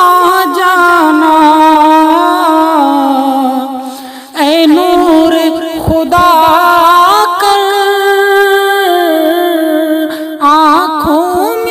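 A man's voice singing a naat in long, drawn-out wordless notes with vibrato, with a brief breath pause about four seconds in.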